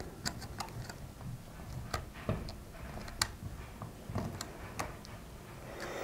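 Small screwdriver working the terminal screw on a chrome light switch fascia as the live wire is fastened in: a run of faint, irregular light clicks and ticks.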